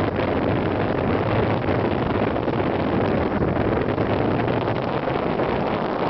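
Steady wind rushing over the microphone on the deck of a moving boat, with a low steady hum from the boat's engine underneath.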